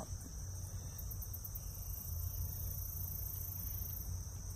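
Steady high-pitched chorus of insects trilling, with a low steady rumble underneath.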